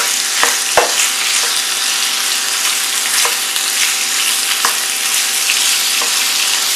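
Chicken breast and sliced onions sizzling in hot vegetable oil in a frying pan as the chicken cooks through, with a few short knocks from the utensil stirring it.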